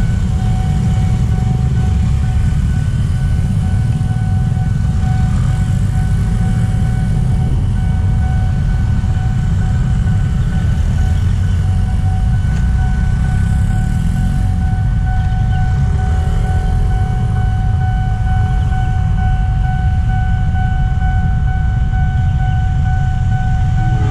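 Railway level-crossing warning alarm sounding one steady high tone, over a heavy low rumble from motorcycle traffic crossing the tracks.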